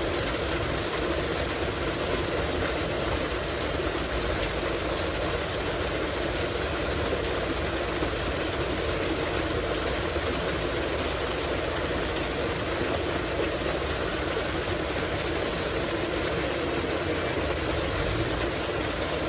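Tubewell water gushing steadily from a large outlet pipe into a concrete tank, a continuous rushing noise with a low rumble under it.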